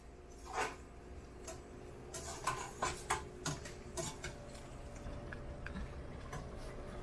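A spoon stirring pureed peppers in a stainless steel pot, knocking and scraping against the pot's side in irregular light clicks over a faint steady hum.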